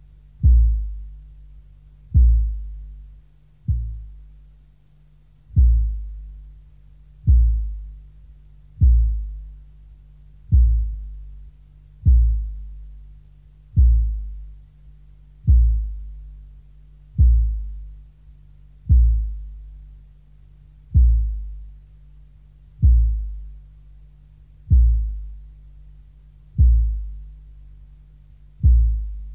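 Industrial noise track: a deep booming thud repeating about every one and three quarter seconds, each dying away, over a steady low hum.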